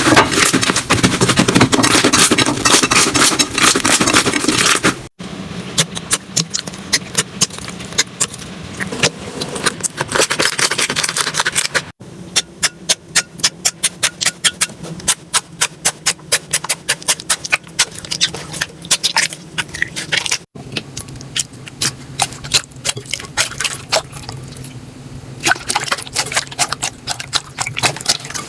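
Slime being squeezed, pressed and poked by hand, with a dense crackling and a quick run of sharp pops, about four a second, in one stretch. It comes in several short clips, each cut off abruptly.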